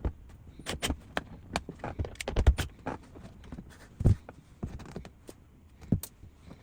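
Irregular knocks, clicks and clatter of things being handled and set down, with a few heavier thumps about two and a half and four seconds in.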